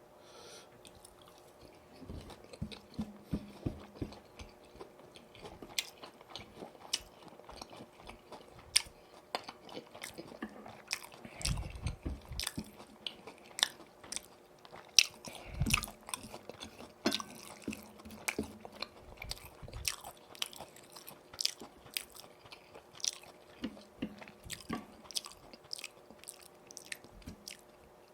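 Close-miked chewing and crunching of crispy boneless fried chicken in yuringi sauce, with irregular crisp crackles and a few heavier bites.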